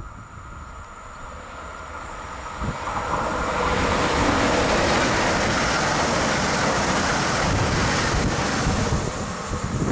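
ČD Škoda RegioPanter electric multiple unit approaching and running past close by. The rushing rolling noise of wheels on rail swells over the first few seconds, holds loud as the cars go by, and eases slightly near the end.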